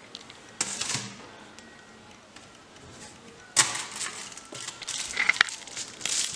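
Hands pressing pizza dough into a foil-lined baking tin, the aluminium foil crinkling and rustling in short bursts: once about half a second in, and again from about three and a half seconds, with a few light clicks.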